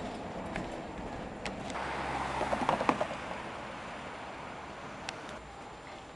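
City street traffic. A road vehicle passes close, swelling about two seconds in with a few sharp knocks at its loudest, then fading to a steady traffic rumble.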